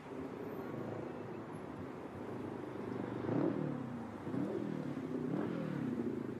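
Motorcycle engine running as the bike rides along. About halfway through, its pitch rises and falls several times with the throttle.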